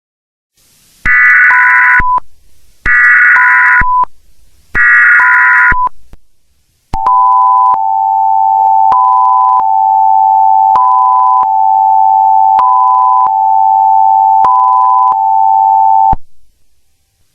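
Emergency Alert System header and attention signal: three short, buzzy digital data bursts, each ending in a brief beep, then the steady two-tone EAS alert tone held for about nine seconds, with a higher beep repeating about every two seconds over it. The tones introduce a new emergency message.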